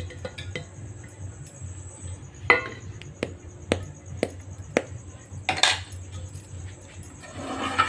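Steel spoon clinking and scraping against a metal cooking pot as cooked rice is spooned in. It goes as a run of sharp taps about half a second apart, with a louder clatter past the middle.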